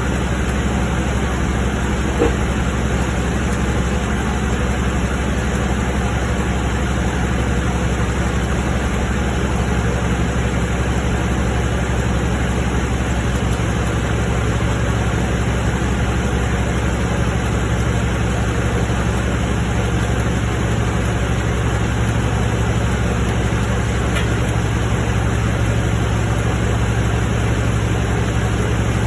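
Ford F-150's 5.0-litre V8 running steadily with a low drone, a little stronger about halfway through. This is the engine whose 'weird noise' is being recorded.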